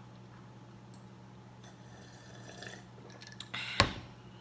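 Eating-and-drinking sounds at a table over a steady low hum: a faint wet, liquid sound, then a sudden sharp knock about three and a half seconds in.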